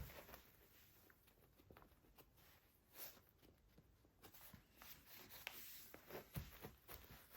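Near silence: room tone with a few faint clicks and rustles, slightly more frequent near the end.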